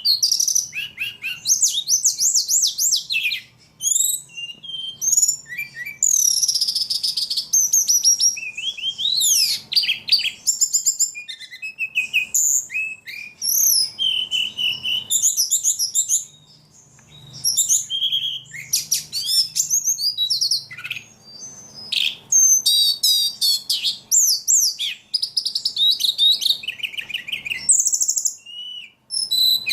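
A ledekan songbird singing continuously, a fast, varied run of high whistles, trills and chirps with only a few short pauses. This is the constant, vigorous singing that bird keepers call gacor.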